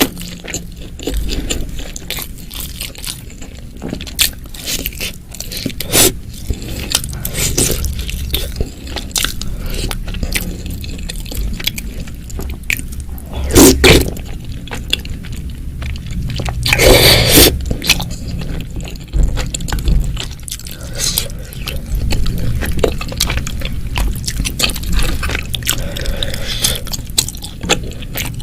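Close-miked eating sounds: chewing, biting and crunching of a spicy meatball and seblak soup, with many small wet clicks and two louder bursts, a short one about halfway through and a longer one a few seconds later.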